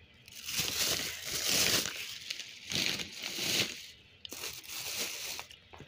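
Thin plastic grocery bags crinkling and rustling as items are pulled out of them, in several bursts separated by short pauses.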